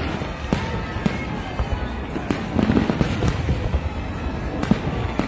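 Aerial fireworks bursting in a run of irregular bangs, with music playing underneath.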